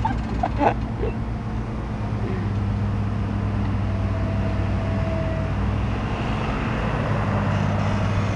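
Excavator's diesel engine running steadily, a constant low drone.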